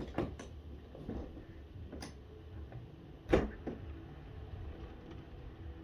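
A few knocks and clicks as a window is opened slightly, the loudest about three seconds in, over a faint steady hiss of rain.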